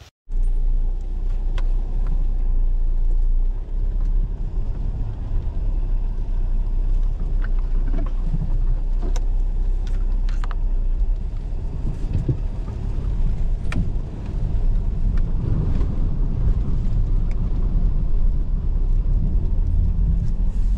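Off-road 4x4 engine running under load with a steady low rumble as the vehicle drives through deep water and mud, with a few sharp knocks and clunks from the vehicle along the way.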